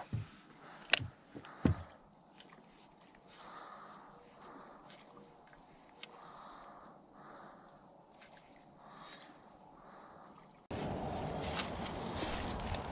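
Faint, steady chirring of insects at a pond's edge, with a few light clicks in the first two seconds. Near the end a much louder rustling noise cuts in suddenly as the camera moves into the reeds and grass.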